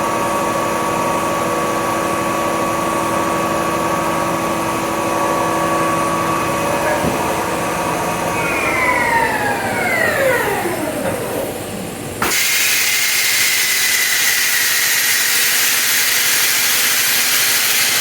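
CNC turning center's spindle running with a steady whine, then winding down, its pitches falling over about four seconds. About twelve seconds in a loud, steady hiss starts suddenly.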